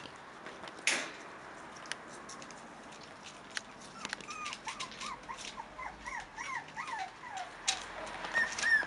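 Five-week-old Cairn Terrier puppy whimpering: a run of short rising-and-falling whines, about three a second, starting about four seconds in, with higher whines near the end. Scattered light clicks and taps throughout, with one louder knock about a second in.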